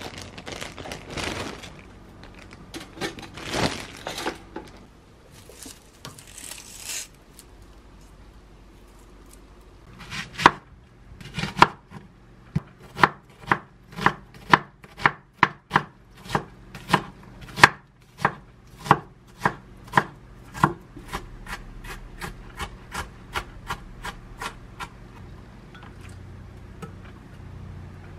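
Kitchen knife chopping an onion on a wooden cutting board: a long run of crisp chops about two a second, growing lighter and fainter near the end. Before the chopping starts there are several seconds of rustling and handling noises.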